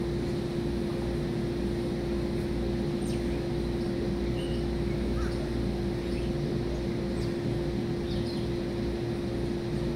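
A steady mechanical drone with one unchanging pitch over a low rumble, with a few faint, short bird calls scattered over it.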